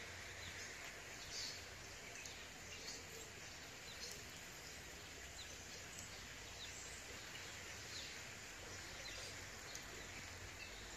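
Faint outdoor ambience: a steady hiss with scattered short, high bird chirps.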